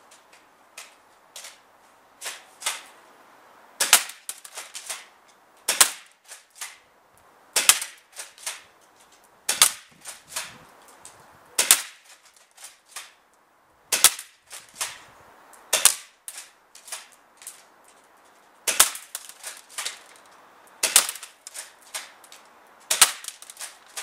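Firepower MS Tactical airsoft tri-shot pump shotgun fired over and over, about ten sharp cracks roughly two seconds apart, with quieter clacks of the pump and BB hits on a paper target between them.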